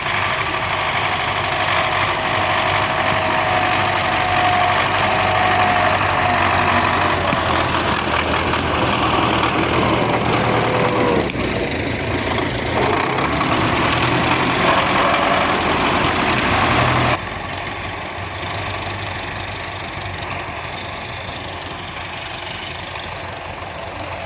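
MTZ-82 tractor's four-cylinder diesel engine running steadily, with a whining tone that drops in pitch a couple of times. About two-thirds of the way through the sound suddenly drops in loudness and the engine runs on quieter.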